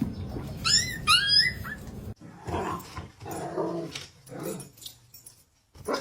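A dog vocalizing: two short high-pitched whining calls about a second in, followed by four or five lower, shorter grumbling calls.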